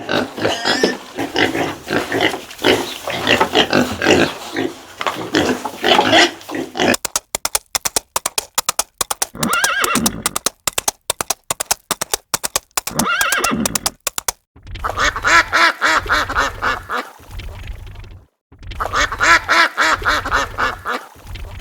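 Farm animal calls in several short clips, one after another. First a dense stretch of calls, then a fast run of clicking sounds broken by a couple of calls, then two blocks of pitched calls over a low hum.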